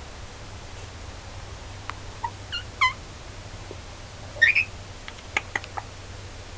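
Pet bird giving a few short chirps about two and three seconds in, then a louder call about four and a half seconds in, followed by several sharp clicks.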